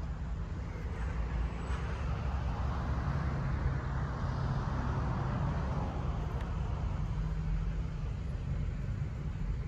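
Steady low vehicle rumble with a broad hiss over it, swelling slightly around the middle.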